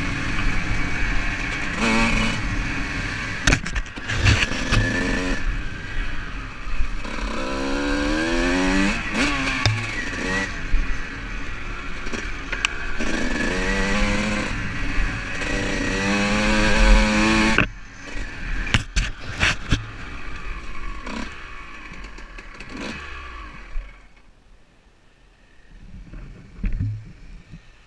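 Dirt bike engine revving up and down as it rides a rough muddy trail, with clattering knocks. About two-thirds of the way through, the engine note drops away sharply, and the last few seconds are much quieter.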